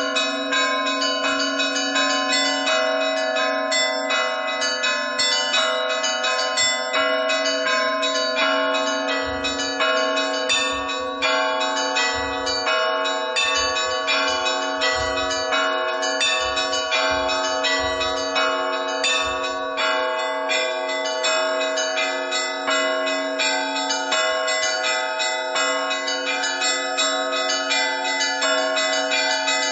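Russian Orthodox church bells ringing a full peal: small bells struck in a rapid, unbroken stream over the steady ring of larger bells.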